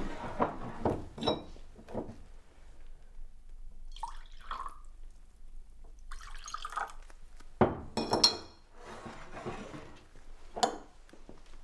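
Liquor poured from a glass decanter into two glass tumblers in two short pours, with sharp ringing glass clinks about eight seconds in and again near the end.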